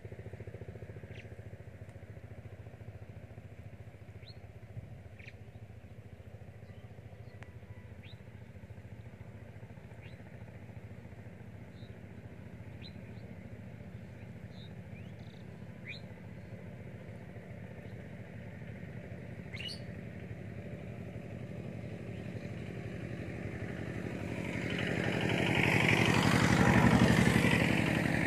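Small birds chirping now and then over a steady low drone. Near the end a motor vehicle passes, growing louder to a peak and then fading.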